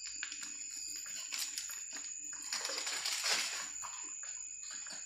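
Faint clinks and clicks of kitchen utensils being handled, with a brief soft rustle about three seconds in, over a faint steady high whine.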